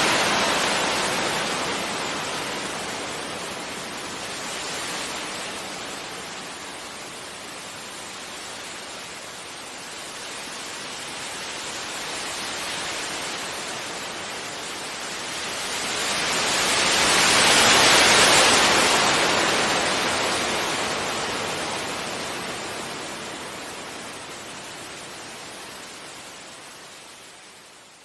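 Ocean waves washing gently onto a beach: a soft hiss of surf that rises and falls slowly. It swells to its loudest about two-thirds of the way through, then slowly fades away.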